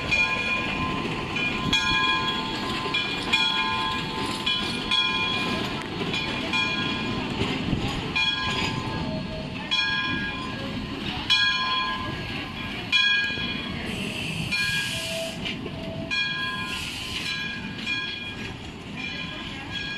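Steam train with open passenger cars rolling slowly past, a low rumble under its bell ringing over and over, about once a second. There are two short hisses in the last third.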